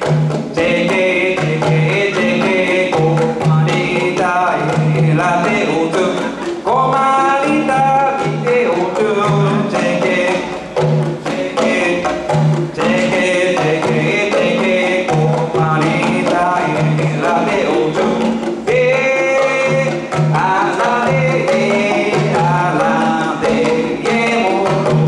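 A man singing solo while playing a two-headed batá drum with his hands, the drum's low open tones falling in a steady rhythm under the melody.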